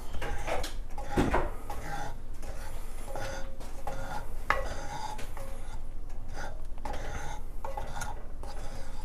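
Wooden spoon stirring a cream sauce in a cast-iron skillet, scraping and knocking against the pan in short irregular strokes.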